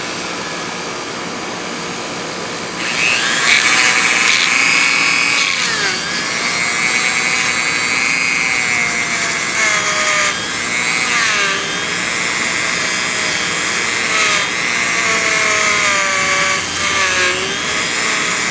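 Dremel rotary tool spinning a brass wire brush inside a Honda XR250 exhaust port, scrubbing out carbon deposits. The motor runs steadily at first, then about three seconds in the brush bites into the port wall and the sound turns louder and harsher, its pitch wavering as the load changes.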